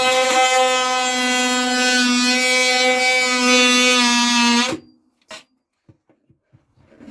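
Handheld electric power tool running with a steady buzzing tone for about five seconds, dipping slightly in pitch near the end before it stops suddenly.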